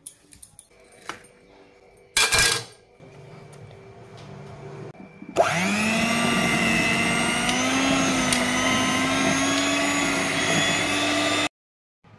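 Electric blender motor starting up, its whine rising in pitch, then running steadily for about six seconds before cutting off abruptly. A short loud clatter comes a little over two seconds in.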